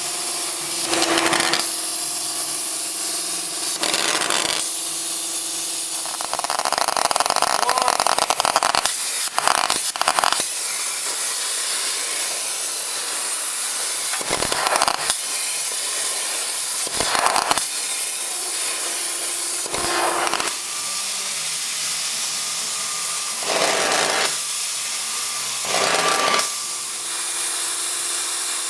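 70 A air plasma cutter cutting thin steel sheet, a steady loud hiss with short louder surges every few seconds.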